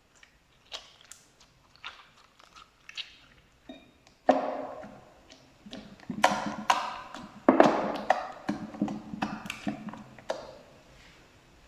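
Slime being squished, making wet crackling and popping sounds: a few small scattered clicks at first, then from about four seconds in a denser run of louder crackles and pops.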